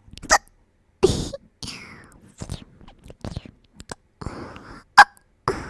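A woman hiccuping several times, short sharp hiccups with breathy sounds between them; the loudest hiccup comes near the end.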